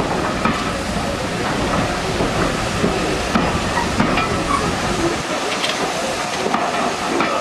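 Teak-bodied passenger coaches of a steam train rolling slowly past, with a steady rumble and hiss and occasional clicks. The deep rumble drops away about five seconds in.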